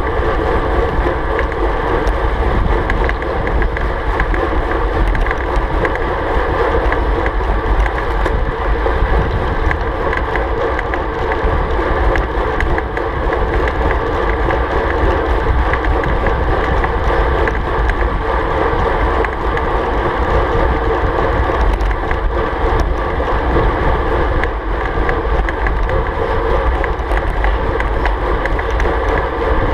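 Steady wind rush over a bike-mounted action camera's microphone, mixed with the hum of road-bike tyres on asphalt, riding at about 47 km/h.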